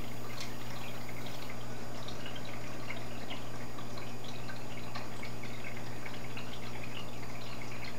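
Aquarium filter running: water trickling and dripping steadily back into the tank, with many small splashes over a steady low hum.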